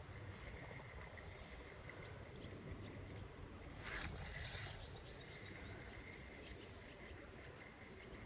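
Faint outdoor background: a steady low rumble, with a brief hiss about four seconds in.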